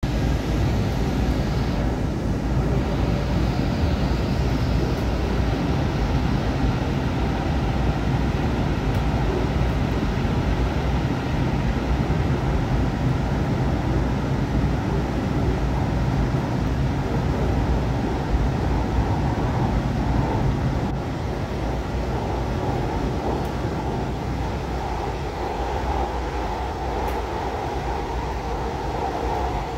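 Steady rumble and rolling noise of a passenger train heard from inside the car as it runs along an elevated track, easing slightly in loudness about two-thirds of the way through.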